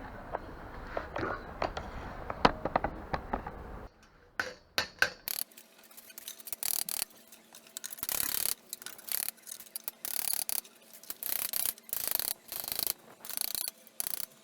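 Hand abrasive strokes rasping back and forth across a salvaged metal plate, about one to two strokes a second, flattening its surface. Earlier there are scattered clicks and a few short squeaks.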